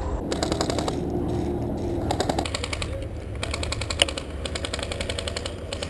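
Airsoft electric guns firing full-auto, several rapid rattling bursts one after another, with a single sharper crack about four seconds in.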